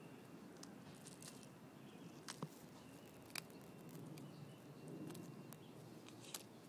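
Faint, scattered crisp clicks and crunches of a tortoise biting into dried dog droppings, with a few sharper snaps about two and a half, three and a half and six and a half seconds in.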